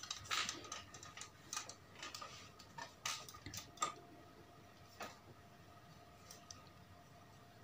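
Faint, irregularly spaced clicks, about half a dozen, over quiet room tone.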